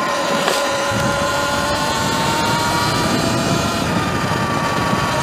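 Sur-Ron electric dirt bike's motor whining while under way, several high tones that sag slightly in pitch, over a steady rushing noise.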